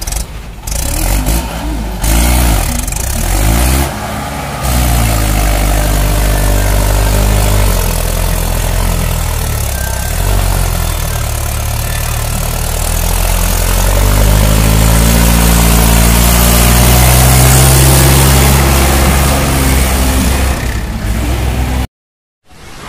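Mahindra 575 DI tractor's four-cylinder diesel engine revving and labouring under the load of a fully loaded sand trolley, its pitch rising and falling again and again. The sound cuts off abruptly near the end.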